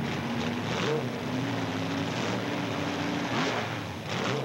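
Open-wheel race car's engine running with a steady note. Three short swells come in, about a second in, near 3.5 s and just before the end.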